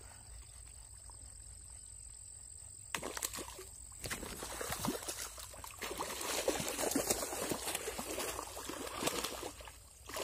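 A hooked tararira (wolf fish) thrashing at the surface by the bank: a sudden splash about three seconds in as it strikes the lure, then a long stretch of loud splashing and sloshing water that dies down just before the end.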